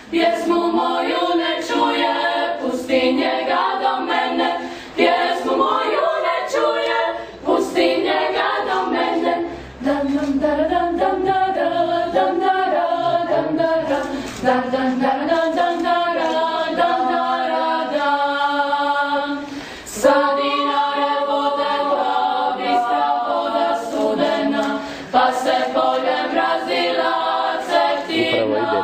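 Mixed young voices of a Dalmatian klapa choir singing a cappella in close harmony, in phrases broken by brief pauses.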